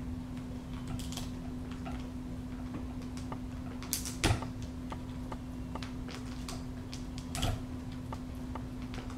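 Peregrine falcon feeding on a quail carcass: scattered small clicks and snaps of beak tearing at meat and bone, with a louder crackle about four seconds in as it bends to the food and another about seven seconds in. A steady low hum runs underneath.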